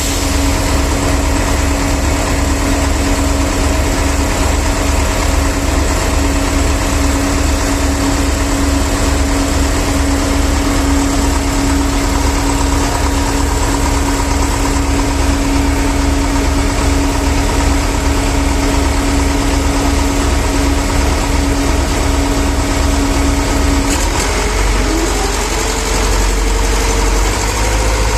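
Heavy diesel engine of a concrete truck running steadily at idle, with a regular low pulsing of about two beats a second. Near the end the engine note changes and rises in pitch.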